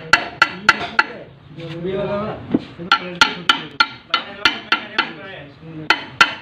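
Hammer tapping a plate into place on a Farmtrac 60 tractor gearbox, light blows in quick runs of three or four, with a pause of about two seconds after the first run.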